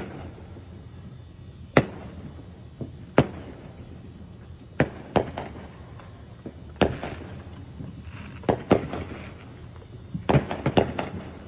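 Fireworks exploding: a series of sharp bangs at irregular intervals, one every second or two, then a quick run of several bangs near the end.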